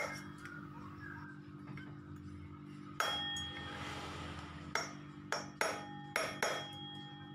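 A hammer striking a screwdriver to drive a new ball bearing into a Honda Vario's CVT driven pulley, tapped on the bearing's outer edge: sharp metallic taps with a short ring. There is one tap at the start, another about three seconds in, then a quick run of five.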